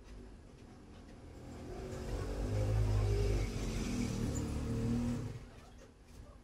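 Computer cooling fans spinning up to full speed during power-on self-test, a rising whir with a steady hum that holds for a few seconds and then drops back sharply as the fans slow down.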